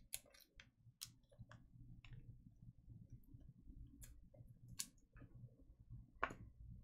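Faint, scattered clicks and taps, about eight of them, some close together and some seconds apart, over a low steady hum.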